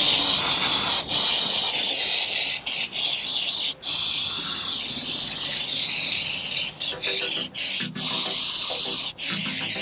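Cleaner sprayed in long hissing bursts, washing down the DSG transmission around a freshly installed valve body. The spray breaks off briefly several times as the trigger is let go.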